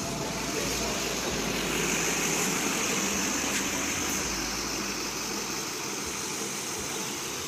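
Duramax V8 turbodiesel of a Chevrolet Silverado 2500HD idling, a steady noisy running sound whose low rumble thins out about six seconds in.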